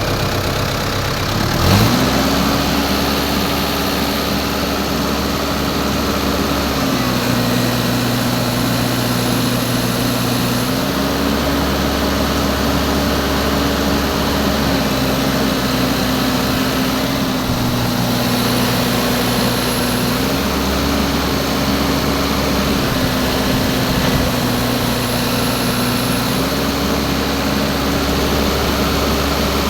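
Engine of a hydraulic machine running while its main pump pressure is checked. About two seconds in the engine speed rises sharply, then its pitch drops slightly and recovers several times as it runs on, on a machine suffering low power and high hydraulic pressure blamed on the main pump.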